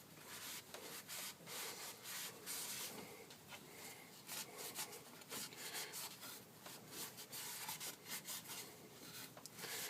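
A cloth rag rubbing and wiping over the engine parts around the oil filter, in quick irregular scrubbing strokes.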